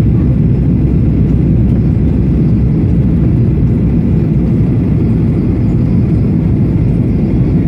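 Steady low cabin noise of a jet airliner in flight, the engines and rushing air heard from inside the cabin at a window seat.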